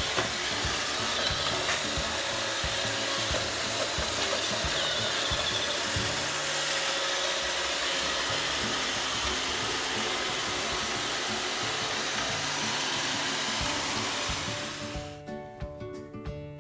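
iRobot Roomba 612 robot vacuum running, a steady whirring of its motor and brushes that fades out about three-quarters of the way through. Background music with plucked notes follows near the end.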